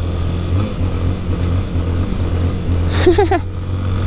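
Honda XRE 300 single-cylinder motorcycle engine running under way, its note wavering unevenly in the first couple of seconds as the throttle changes. A short vocal call cuts in about three seconds in.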